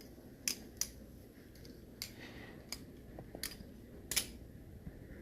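Six irregular, sharp clicks over about four seconds, the last the loudest, above a low, steady room hiss.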